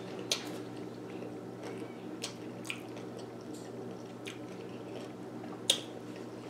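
Close-up chewing and wet mouth smacks of someone eating chow mein noodles, with scattered short clicks, the loudest a little before the end, over a steady low hum.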